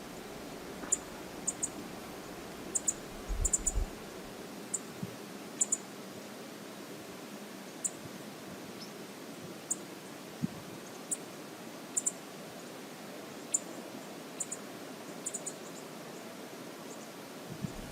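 Steady rush of a river flowing, with about twenty sharp, high-pitched ticks scattered irregularly over it.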